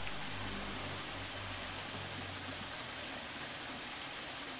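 Small rocky stream: a steady rush of water trickling and splashing over stones.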